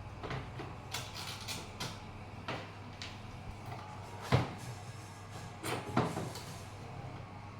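Scattered clicks and knocks of hard plastic parts and small tools being handled while an extension-lead socket is taken apart and refitted, the sharpest knock about four seconds in and another around six seconds, over a low steady hum.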